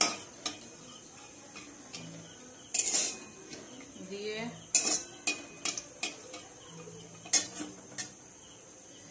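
Flat metal spatula clinking and scraping against a metal kadai as bay leaves and whole garam masala are stirred in hot oil for tempering. The clinks come irregularly, in a cluster about three seconds in and again between five and eight seconds in.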